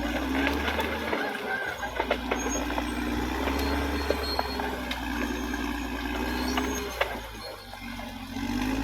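Caterpillar D6R XL bulldozer's diesel engine running steadily, with scattered sharp clicks and knocks over it. The engine sound drops for about a second, around seven seconds in, then picks back up.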